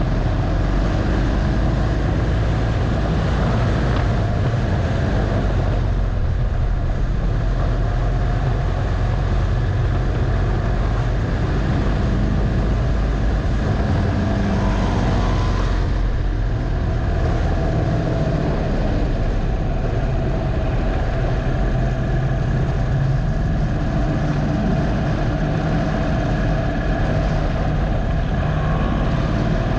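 2015 Harley-Davidson Dyna Low Rider's air-cooled Twin Cam 103 V-twin running on a track lap, heard from a camera mounted on the bike; its note rises and falls with the throttle through the corners.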